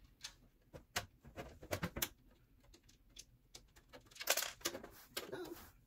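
Light clicks and taps of plastic and metal as a liquid cooler's radiator and fan assembly is handled and pushed flush into a PC case, with louder scraping or rubbing noises about four and five seconds in.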